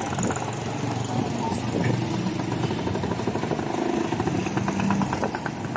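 Street traffic dominated by motorcycle-sidecar tricycle engines running and passing close by, with a rapid pulsing engine note growing clearer near the end.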